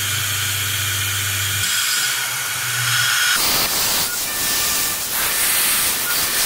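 PM-30 CNC milling machine cutting an aluminium block with a small end mill: the spindle runs with a low hum under a steady hiss from the nozzle blowing on the cut. About three and a half seconds in, the footage switches to 12x time-lapse and the sound turns into a choppy, sped-up rush.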